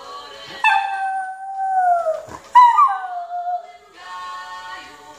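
Miniature poodle howling along to music: two long howls, each sliding slowly down in pitch. The first starts just under a second in and the second about halfway through, with the music heard again between and after them.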